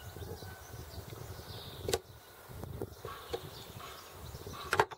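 Small metal tool clicking and scraping against the steel internal parts of a SRAM/Sachs Super 7 hub clamped in a vise: light handling ticks, a sharp click about two seconds in and a louder one near the end.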